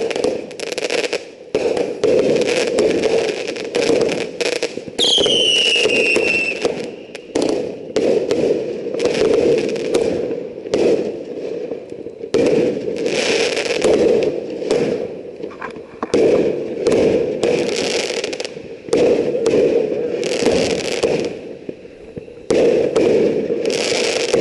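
Fireworks going off in a rapid, almost unbroken run of bangs and crackling bursts. About five seconds in, a whistle falls in pitch over a second or two.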